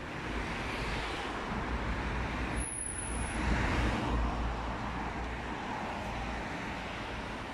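City street traffic: cars driving past with a steady low rumble, swelling about three to four seconds in as a car goes by, and a brief thin high whistle just before.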